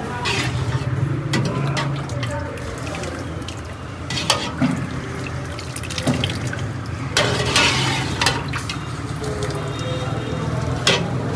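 A metal ladle scoops thick chickpea curry in a large steel pot and pours it back in, splashing, with a few sharp clinks of the ladle against the pot.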